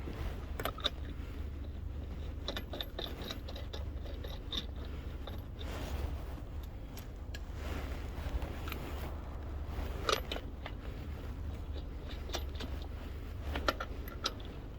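Irregular metallic clicks and clinks of hand tools and wheel nuts being handled during a car tyre change, over a steady low hum.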